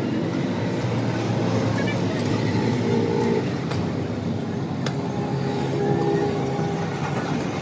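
A motor vehicle's engine running steadily, with a few sharp clicks.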